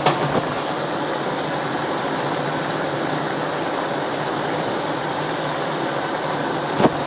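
Cream sauce with pork and mushrooms simmering in a frying pan: a steady bubbling hiss. A short click near the end.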